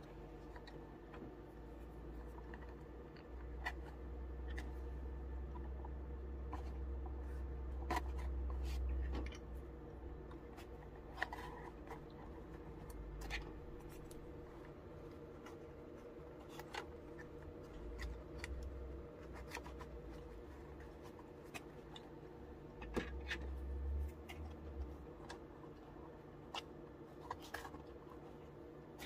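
Small plastic clicks, taps and handling rustle at irregular intervals as plastic prying tools are pushed in between a model train car's plastic body shell and its chassis to unclip the body. A steady low hum runs underneath.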